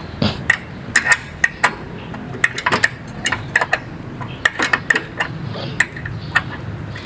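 Small metal hardware (washers and bolts) clinking as it is handled and fitted by hand: an irregular string of light, sharp metallic clinks.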